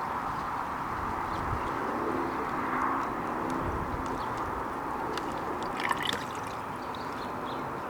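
Windshield washer fluid pouring steadily from a one-gallon jug into the truck's washer reservoir, with a few light clicks about six seconds in.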